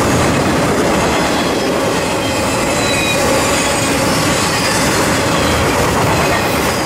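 Intermodal freight train's cars, carrying highway trailers on flatcars, rolling past: a steady, loud rumble of steel wheels on the rails, with thin, high wheel squeals now and then.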